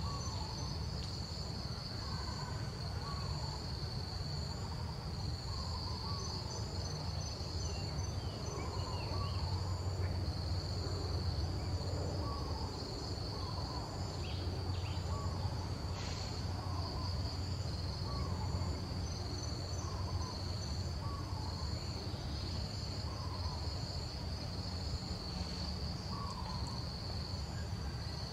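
A steady insect chorus: a continuous high, shrill drone with a faster pulsing layer above it. A short chirping call repeats every second or two beneath it, over a low background rumble.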